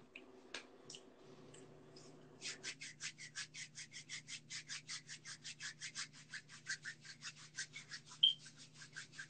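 Rapid, even scraping strokes, about six a second, beginning a couple of seconds in, over a faint steady hum.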